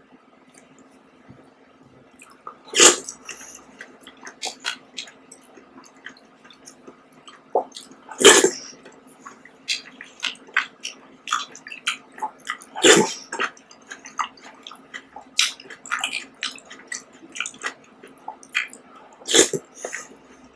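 Close-up eating of fruit jelly: a plastic spoon clicks and scrapes in plastic cups, with wet squishing of jelly and chewing. Four louder clicks stand out, about three, eight, thirteen and nineteen seconds in.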